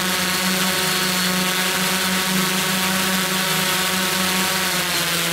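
Multirotor drone's motors and propellers humming at a steady pitch, with a hiss above the hum.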